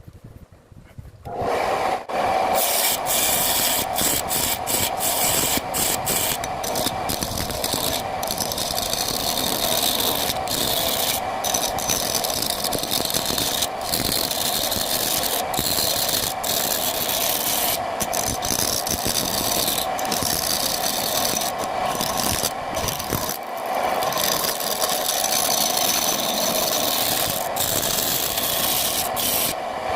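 Wood lathe spinning a sappanwood blank while a turning tool scrapes against it: a steady running hum with a raspy hiss that keeps breaking off for a moment as the tool lifts and bites again. The sound comes in about a second and a half in.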